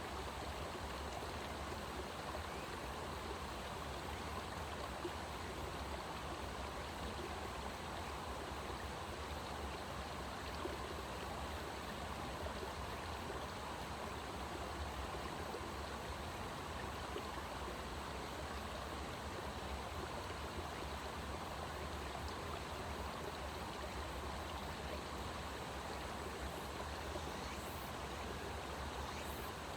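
Steady rushing of flowing water, even and unbroken, with a few faint high chirps near the end.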